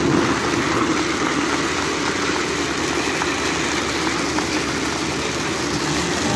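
Steady hissing of indoor spark fountains (stage gerbs) shooting sparks, mixed with a crowd clapping.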